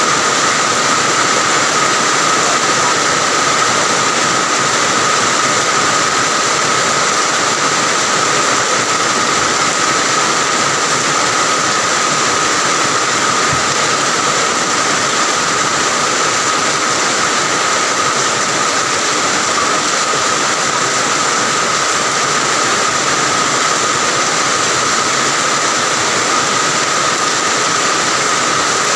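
Steady heavy rain falling, an even hiss with a thin, steady high tone running through it.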